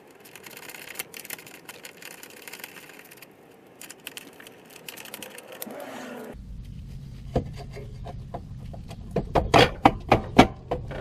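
Ratchet wrench clicking fast as bolts are turned out. A few seconds later, over a low steady rumble, a series of sharp metal knocks and clanks as parts are handled, growing louder toward the end.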